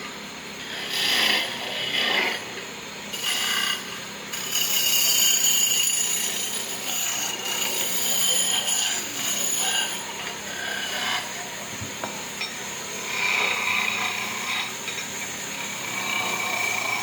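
Saw cutting through wood, a rasping noise that swells and fades unevenly.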